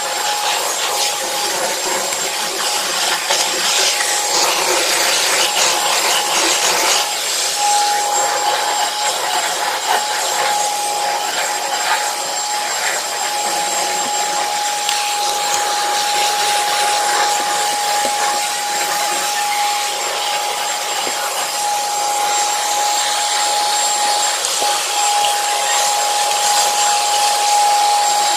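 Commercial HEPA vacuum cleaner running steadily over carpet, its motor holding a constant whine throughout.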